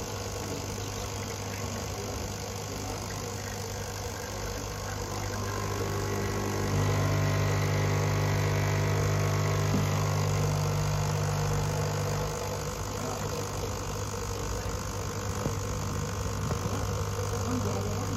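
Espresso machine pump humming steadily while a shot brews through a bottomless portafilter. The hum grows louder about seven seconds in and eases back a few seconds later.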